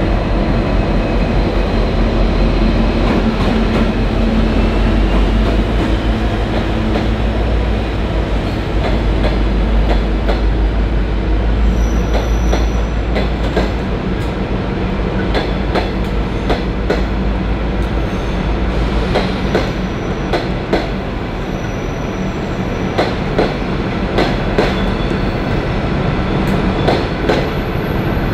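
Diesel locomotive-hauled passenger train moving through the station: the locomotive's diesel engine runs with a steady low rumble that eases off about two-thirds of the way through, while the wheels click over rail joints and points and squeal briefly a few times.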